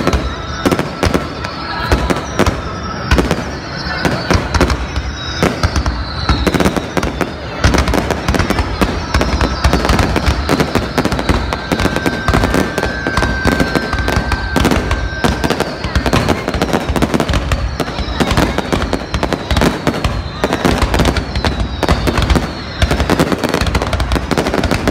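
Aerial fireworks display: a rapid, continuous series of shell bursts and bangs, with short falling whistles repeating about once a second.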